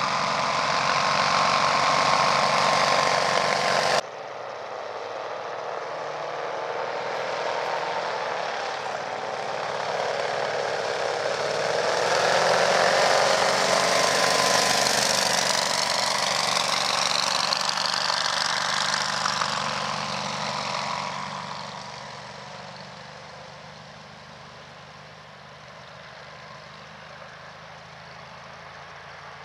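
Four-stroke engine and propeller of a powered-paraglider trike running at power. There is an abrupt change about four seconds in; the sound then swells, with its pitch sweeping up and down through the middle, and falls to a fainter, distant drone for the last several seconds as the trike flies away.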